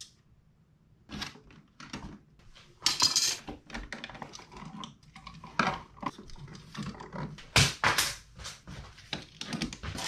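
A screwdriver and plastic wall switch parts being handled as a dimmer switch is swapped out at the wall box: an irregular string of clicks, knocks and scrapes, loudest about three seconds in and again near eight seconds.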